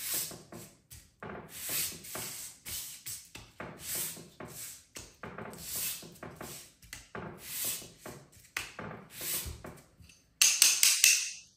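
Knife handle scale rubbed in one-direction passes across 80-grit sandpaper on a granite surface plate. Each pass gives a rasping scrape, about one every second and a half, roughly seven in a row, scuffing the gluing face flat. A louder scrape with a few clicks comes near the end.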